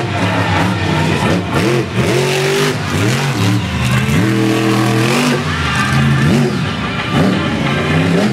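Monster truck's supercharged V8 revving hard and dropping back over and over during freestyle driving, its pitch climbing and falling repeatedly, held high for about a second around the middle.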